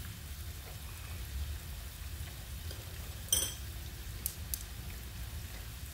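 Slices of tofu frying in oil in a nonstick frying pan: a soft, steady sizzle with a few sharper pops, the strongest about three seconds in, over a low hum.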